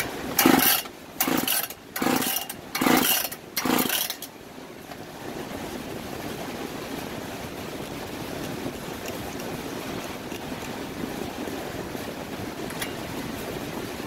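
Husqvarna K760 74cc two-stroke concrete saw's recoil starter yanked about five times in quick succession. With the carburetor removed and only a squirt of gas in it, the engine tries to fire but doesn't keep running. After that there is a steady background hiss.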